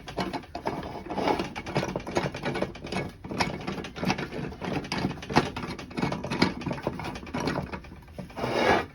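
Homemade welded steel drill press vise being worked: a quick, irregular metal clicking and rattling as the screw is turned and the jaw slides, with a louder scrape near the end.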